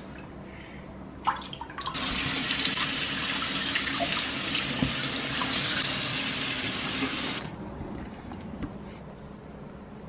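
Kitchen tap running into a stainless-steel sink over a whole red snapper being rinsed. The water is turned on about two seconds in and shut off about five seconds later.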